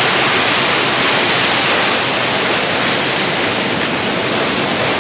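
Tall waterfall in full flood, raging: falling water making a steady, loud, hissing rush.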